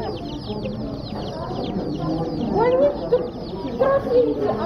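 A flock of young chicks peeping continuously, a dense stream of short, high, rapidly falling chirps. A few lower, louder sounds stand out about midway and near the end.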